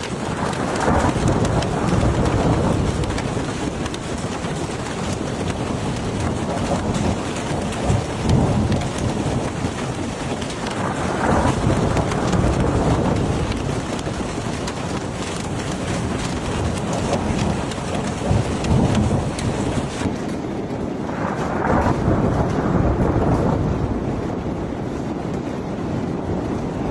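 Hailstorm: a dense, loud downpour of hail and rain pelting down without a break, with rumbles of thunder swelling every few seconds. The sound changes suddenly about twenty seconds in.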